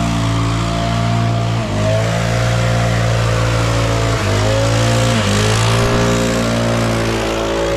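Petrol backpack leaf blower running near full throttle, blasting air across wood chips on paving. Its engine speed dips briefly and picks up again three times.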